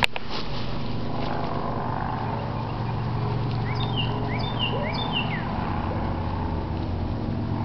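A steady low motor drone runs throughout. A bird chirps a quick series of short down-slurred notes in the middle, and there is a single sharp click at the very start.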